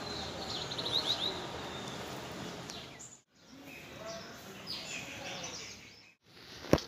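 Outdoor morning ambience with birds chirping: a quick run of high chirps about a second in and scattered calls after it. The sound drops out briefly twice, and a single sharp click near the end is the loudest moment.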